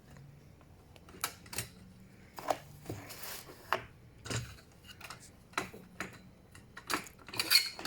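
Irregular light clicks and knocks of a pet cage door being closed and latched, the busiest cluster near the end.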